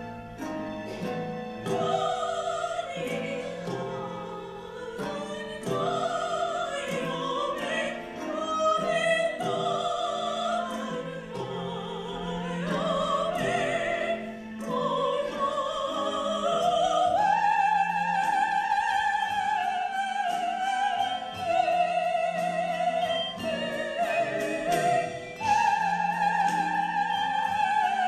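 Handbell ensemble ringing chords and struck notes under a high singing voice that carries a wavering melody with vibrato. The melody climbs about halfway through and then holds long notes.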